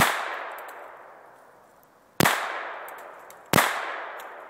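Three pistol shots from a Walther P22 .22 LR, the second about two seconds after the first and the third a second and a half later, each followed by a long echo. The pistol is failing to chamber the next round between shots.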